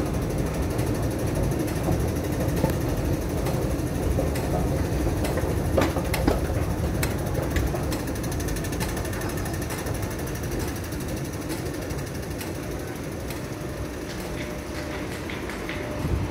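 Steady low rumble and hum of an underground metro station: ventilation and machinery noise, with a few light knocks about six seconds in. The rumble eases a little about halfway through.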